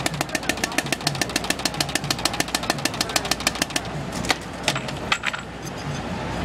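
Rapid, even clicking, about nine clicks a second, that stops about four seconds in and leaves a few scattered clicks, over a low, regularly pulsing beat.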